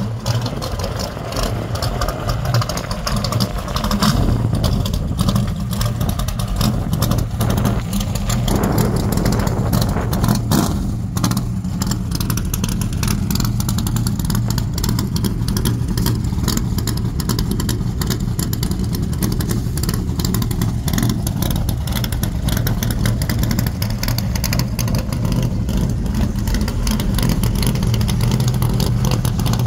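Custom C3 Corvette's V8 running at idle through chrome side-exit exhaust pipes, a steady, deep exhaust note.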